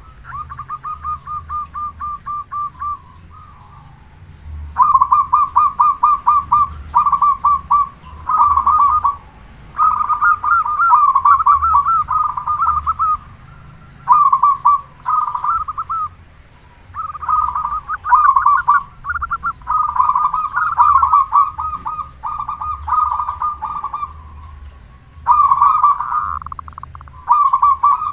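A local-strain zebra dove (perkutut) cooing in repeated phrases of rapid rolling notes, each phrase lasting a second or two with short pauses between. It is a loud, full-voiced bird in song, the kind of call used to lure other perkutut and provoke them into answering.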